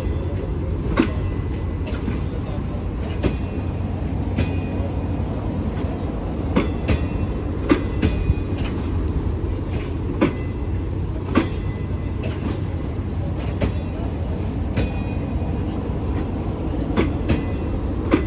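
Passenger train rolling past at low speed: a steady rumble, with wheels clicking irregularly over rail joints and brief faint squeals from the wheels.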